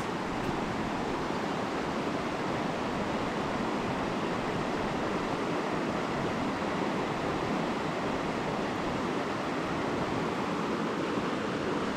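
Fast-moving river water rushing steadily over shallow rocky riffles.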